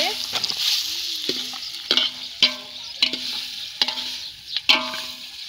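Chicken pieces sizzling in hot oil in a metal pot while a metal ladle stirs them. The ladle knocks and scrapes against the pot about seven times, and each knock leaves the pot ringing briefly.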